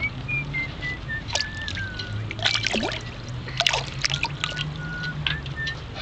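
Water splashing and trickling in a mesh keepnet as small mullets thrash at the surface, in irregular short splashes.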